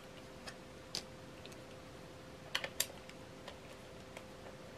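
Light clicks and taps of a small precision screwdriver and tiny screws being handled against a plastic battery-compartment cover. A single click about a second in, a quick run of three clicks a little past halfway, then a few faint ticks.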